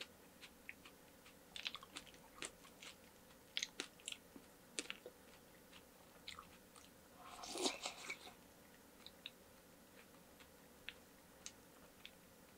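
Close-miked eating sounds of watermelon punch with ice: soft, scattered crunches and wet chewing, with one longer, louder noise a little past the middle.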